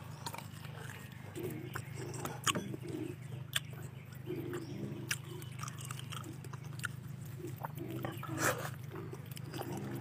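A person chewing food close to the microphone, with wet mouth clicks and lip smacks every second or so. A faint steady low hum lies underneath.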